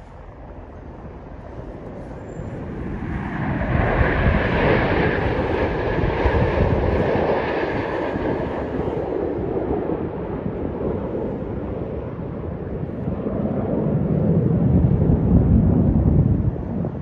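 Jet aircraft passing overhead: a rushing jet roar with a whine that builds to its loudest a few seconds in and fades. A second, deeper jet rumble swells near the end and then drops away.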